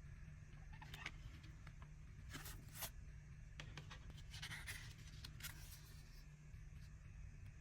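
Faint handling of a CD single's packaging: a few short scrapes and clicks of paper and plastic being moved, over a low steady hum.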